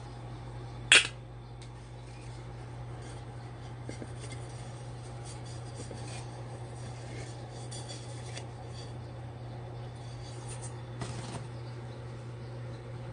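Clinks and light rubbing of an electric heating cup kettle and its lid being handled. One sharp clink comes about a second in, then a few faint taps, over a steady low hum.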